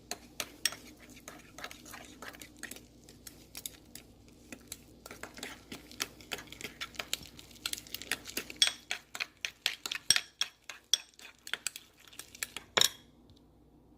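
Batter being stirred briskly in a Pyrex glass bowl, a utensil clicking against the glass in quick, uneven strokes that grow faster and louder in the second half, with one louder knock near the end.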